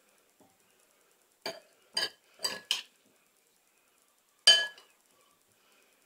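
A metal spoon clinking against a ceramic bowl and plate while dishing out pasta salad: four quick clinks about a second and a half in, then one louder, ringing clink near the end.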